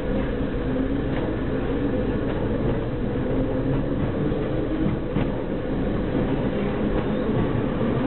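Diesel multiple unit running as the train pulls away from the station, heard from inside the rear cab: a steady engine hum with wheel-and-rail noise, and a few light clicks.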